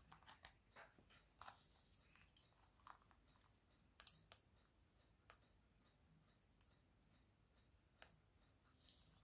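Quiet, scattered small clicks and light taps, with about five sharper clicks spread through the second half.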